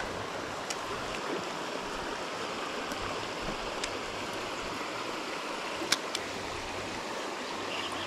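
Shallow river running over a stony riffle: a steady rush of flowing water, with a few light clicks over it.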